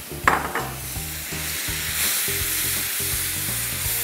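Kashmiri chilli powder and a dash of water sizzling in hot mustard oil in a pan while a spatula stirs it; the water keeps the chilli from burning. A brief louder burst comes about a third of a second in.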